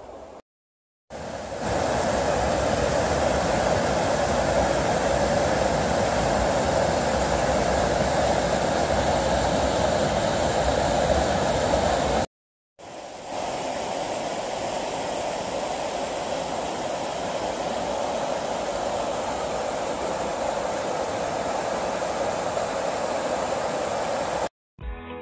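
River water rushing over a small waterfall and a cobbled stone weir: a steady rush of falling water. It cuts out for a moment about halfway and comes back a little quieter.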